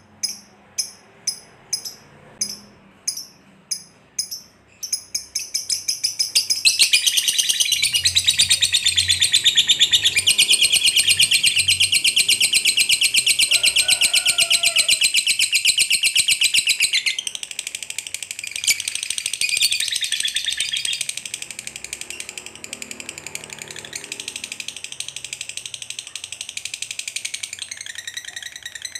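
Masked lovebird calling: a run of short, evenly spaced high chirps, then from about six seconds a loud, very rapid rattling chatter held for around ten seconds, the long 'ngekek' of a bird in full song, which then breaks into softer, broken chattering.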